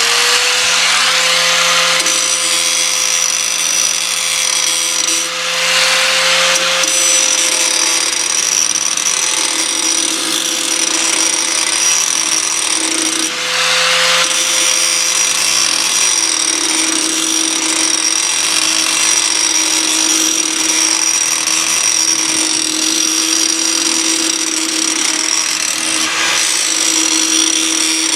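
Angle grinder running steadily with its trigger locked on, grinding the dull cutting edge of a Bush Hog rotary mower's steel blade. The motor's pitch wavers briefly a couple of times as the load on the disc changes.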